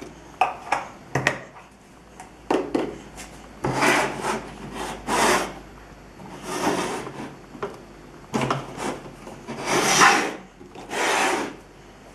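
Hands working a plastic Play-Doh toy set and its dough on a table. A few sharp clicks, then a series of rubbing and scraping strokes, each about half a second to a second long.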